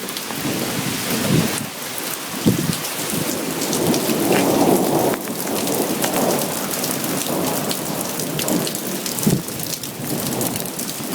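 Heavy rain pouring down in a thunderstorm, with a low roll of thunder swelling about halfway through.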